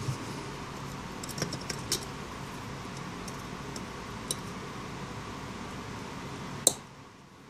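Light metallic clicks and taps of a small metal tool working at a phone's SIM card slot while it is being desoldered from the circuit board, over a steady low hum; the sharpest click comes near the end.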